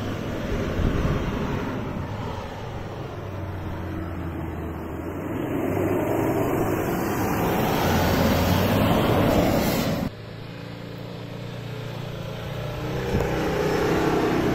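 Ford Endeavour (Everest) SUV's diesel engine revving hard, its note rising and falling, as it slides sideways over soft sand with the wheels spinning. About ten seconds in the sound cuts abruptly to a quieter engine note that builds again near the end.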